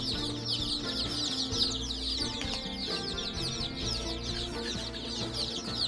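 A brood of five-day-old local chicks peeping nonstop, many short falling cheeps overlapping.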